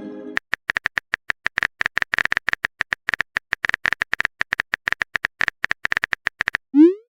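Rapid, irregular clicks of a phone keyboard typing sound effect, several a second, with a pitched chime fading out at the start and a short rising swoosh near the end, typical of a chat app's message sounds.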